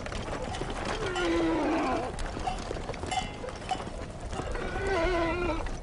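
Horses whinnying, one call about a second in that falls in pitch and another near the end, with a few hoof knocks on stony ground.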